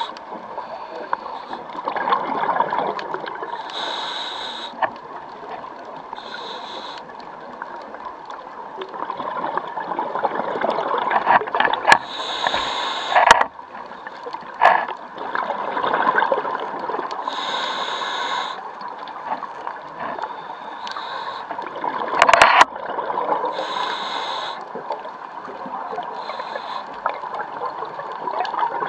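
Scuba diver's own breathing through a regulator underwater: a brief hiss on each inhalation, recurring every five or six seconds, with bubbling exhaust gurgling between breaths. A few sharp clicks break in, the loudest about 22 seconds in.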